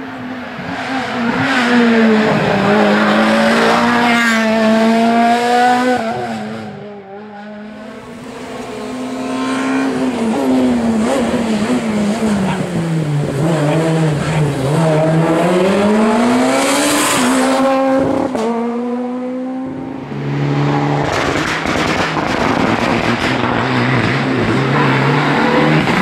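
Rally car engines revving hard through the gears as they pass on a tarmac stage. In the middle pass the pitch falls as the car slows for a tyre chicane, then climbs as it accelerates away. The sound cuts off suddenly about a quarter and three quarters of the way through as separate passes follow one another, the last a Mitsubishi Lancer Evo X.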